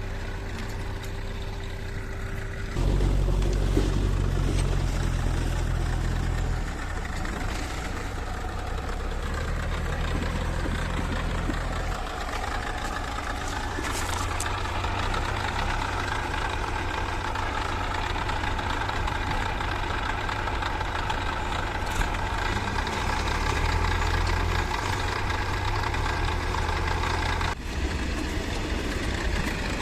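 Heavy diesel engine of a working machine running steadily, with a low rumble. It gets louder about three seconds in and changes note a few times.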